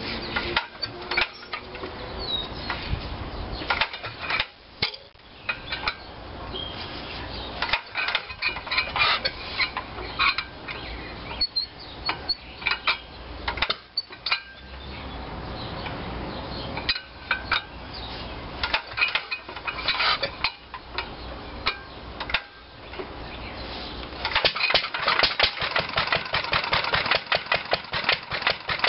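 1946 International Harvester LB 3–5 hp single-cylinder engine being hand-cranked on a cold start, giving irregular knocks and clanks with short pauses between pulls. About 24 seconds in it catches and settles into a steady, rapid running beat.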